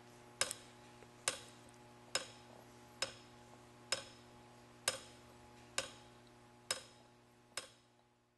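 Kinetic sculpture's metal mechanism clicking sharply about once a second, each click with a brief ring, over a steady motor hum. The hum fades away over the last couple of seconds.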